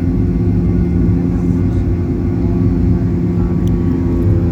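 Aircraft engines droning steadily from inside the cabin, a constant rumble carrying several steady hum tones.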